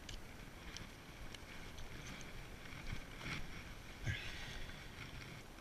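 A steady outdoor hiss with a few soft taps and scuffs on a dirt bank. The loudest is a dull knock about four seconds in.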